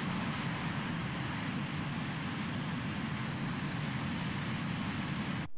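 Steady in-flight noise of an A-4G Skyhawk jet, heard from the cockpit: a rushing sound over a low rumble, with a high steady whine. It cuts off suddenly near the end.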